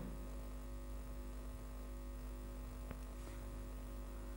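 Steady low electrical mains hum, with a single faint tap about three seconds in.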